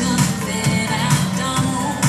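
Pop song playing: a steady beat of about two strokes a second under a singing voice.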